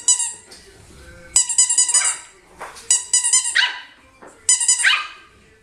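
A small puppy barking in high, sharp yips that fall in pitch, each answering a short run of squeaking from a toy ball held in front of it.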